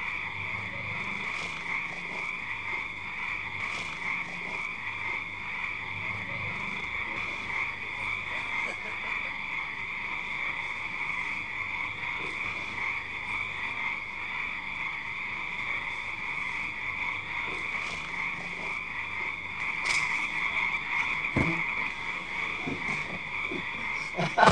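Chorus of frogs calling at night, a steady, unbroken din. A faint low hum sits under it for the first several seconds.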